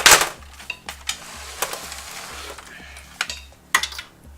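Handling noise as SATA cables are worked at the back of a PC case: a loud rustling scrape at the start, a hiss of rustling, then several light plastic clicks and clatters.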